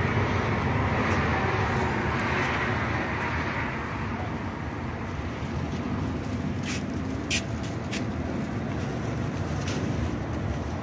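Steady mechanical hum with a rushing, fan-like noise, a little louder in the first few seconds, and a few short sharp clicks between about seven and ten seconds in.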